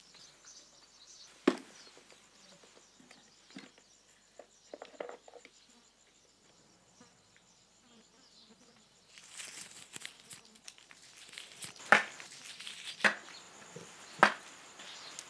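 Shoeshine brushing on a leather boot: a scrubbing hiss with sharp slaps roughly once a second, after a mostly quiet stretch broken by a single sharp click.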